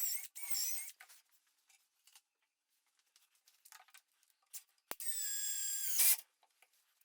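Power drill running in two short bursts, about a second long each, the second louder; its whine sags in pitch under load, then cuts off. A sharp click comes just before the second burst.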